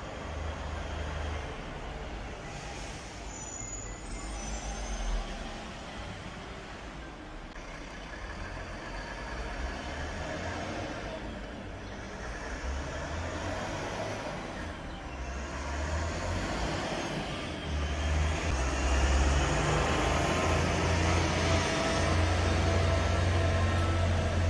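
Street traffic heard from above, dominated by a concrete mixer truck's diesel engine running, growing louder as the truck comes up the street and passes close below in the last several seconds.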